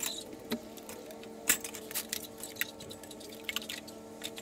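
Irregular light clinks, taps and clatter of hard objects being handled and hung on wall hooks, with one sharper knock about a second and a half in. A faint steady hum runs underneath.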